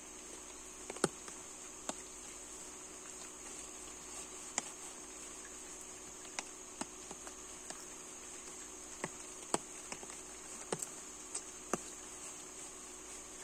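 A steady high-pitched insect drone, with scattered sharp ticks and taps close by at irregular intervals.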